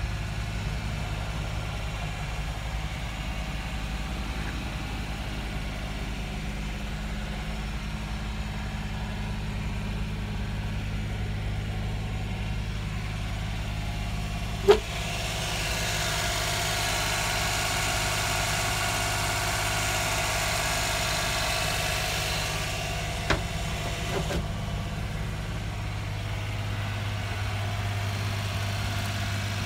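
Suzuki Carry kei truck's small three-cylinder engine idling steadily. About halfway through there is a sharp click, then a whirring hiss joins in for about nine seconds and stops after two softer clicks.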